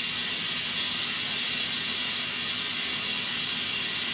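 Compressed air hissing steadily from an airline as a racing tire is inflated to seat its bead on the wheel.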